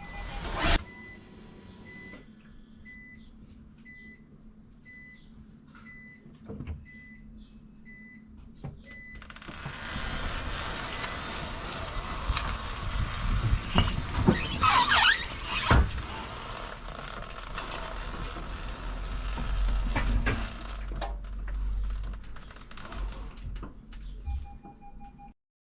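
A car's repeating warning beep, about one and a half beeps a second, then the Nissan Note moving slowly with a low rumble of road and running noise and a few knocks. The noise of the car moving starts at about ten seconds and cuts off at the end.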